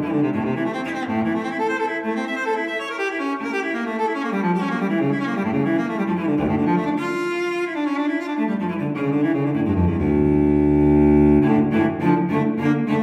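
Background music on low bowed strings such as cello, moving note to note, with a chord held for about a second and a half some ten seconds in.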